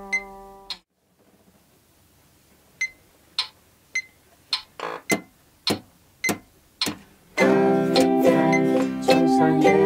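An acoustic guitar chord rings and is cut off just after the start. After a short gap a Cherub WMT-555C tuner-metronome ticks a steady beat, a little under two clicks a second, and a ukulele starts strumming over it a couple of seconds before the end.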